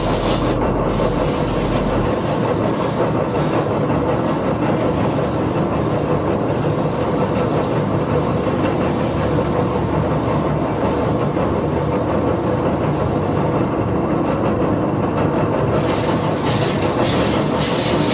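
Power woodworking tool running steadily against a wooden skateboard deck as it is shaped and sanded, a dense even machine noise with a faint steady hum.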